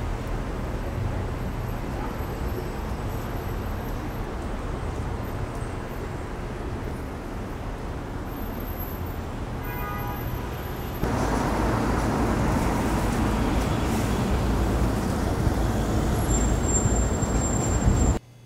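City street ambience: a steady hum of road traffic, which gets louder about eleven seconds in. A brief high-pitched tone sounds just before the change.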